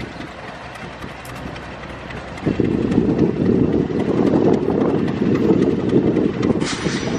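A 2000 class diesel railcar gives a low, steady rumble as it draws in. The rumble starts abruptly about two and a half seconds in. There is a short hiss near the end.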